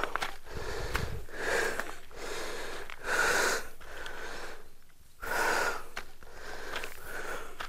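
A person breathing heavily close to the microphone, a loud breath about every two seconds, with a few light clicks in between.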